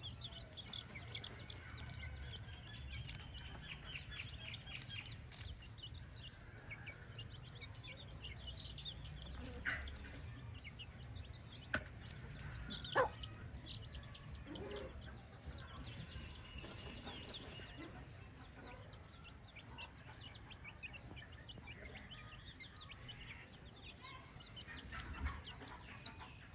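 Chickens clucking, with many short high chirps throughout and a few louder, sharper calls in the middle, over a low rumble.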